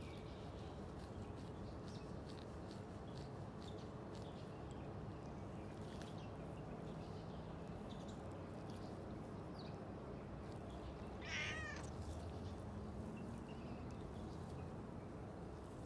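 A cat gives one short, high meow about eleven seconds in, over faint low background noise.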